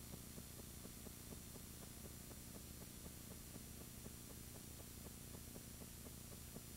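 Near silence: a steady low hiss and hum with faint, evenly spaced ticks, several a second, the empty soundtrack of an old silent home movie transfer.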